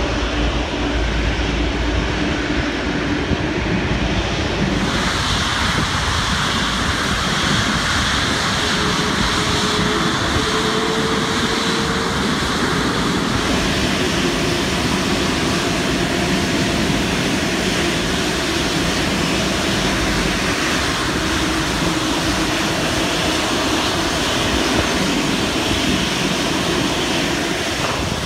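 Boeing 777-300 jet engines running at taxi power as the airliner taxis in: a loud, steady rush of jet noise with a thin high whine over it in the first half.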